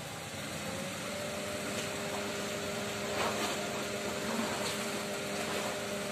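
A steady machine hum that sets in about a second in and cuts off at the very end, over a constant background hiss.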